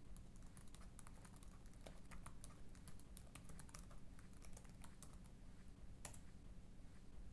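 Faint typing on a laptop keyboard: light key clicks in a quick, irregular stream, with one louder click about six seconds in.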